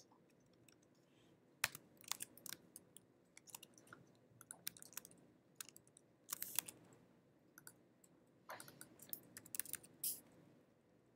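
Faint typing on a computer keyboard: scattered keystrokes in short, irregular runs with pauses between.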